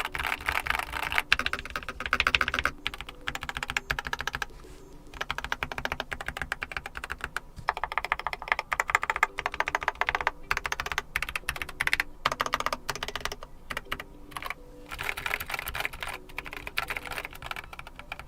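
Typing on a Keychron K4 HE keyboard with Nubia linear magnetic (Hall effect) switches: rapid runs of keystroke clacks with a few short pauses.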